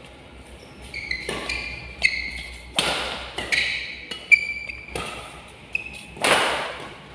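Badminton doubles rally: rackets striking the shuttlecock back and forth, about eight sharp hits at a fast pace with the loudest near the end, each ringing briefly in the hall, and shoes squeaking on the court between shots.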